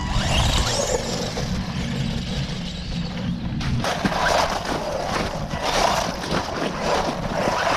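Two 1/16-scale electric RC trucks driving hard over mud, snow and slush: small motors whining and wheels churning and spraying wet snow. It is a dense rushing noise that changes abruptly to a brighter churning about four seconds in.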